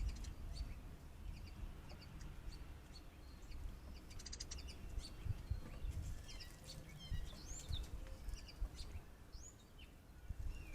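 Faint scattered bird chirps and short calls from several birds, over the low rumble of wind on the microphone.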